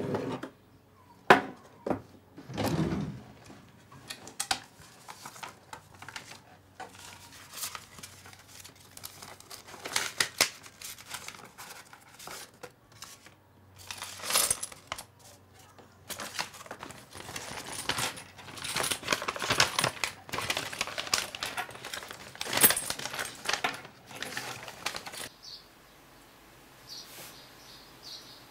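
Coins being handled and put into a wooden box: irregular clinks and clicks of metal on metal and wood, with some paper rustling, busiest in the second half and dying down near the end.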